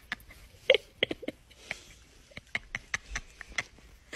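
A small animal giving a few short squeaks and chirps among scattered light clicks.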